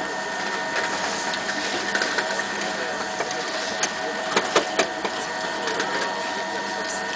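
Blastrac BMG-435WD triple-head floor grinder wet-grinding stone tiles: a steady electric motor hum with a whine over a continuous grinding noise. A few sharp clicks about four to five seconds in.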